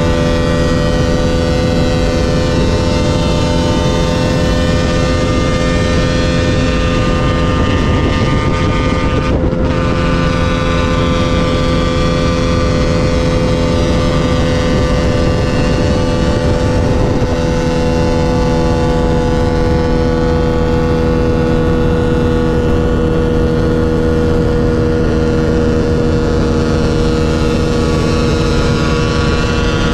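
Motorcycle engine running at a steady pitch while cruising at speed, with a brief dip about nine and a half seconds in.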